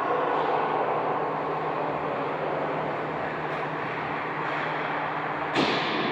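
Steady game noise in an ice rink, with one sharp knock about five and a half seconds in, like a stick, ball or body striking the boards.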